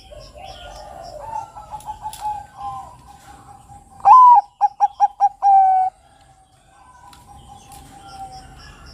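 Bangkok-type zebra dove (perkutut) singing its song. About four seconds in comes one loud rising-and-falling coo, then five quick short notes and a longer held closing note. Softer cooing comes before it, and faint chirps of small birds sit underneath.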